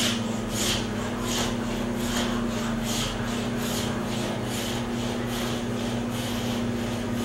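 Scratch stock, a wooden block holding a shaped blade, pushed back and forth along a wooden window muntin to scrape in its molding profile: about ten even scraping strokes, one roughly every 0.7 seconds.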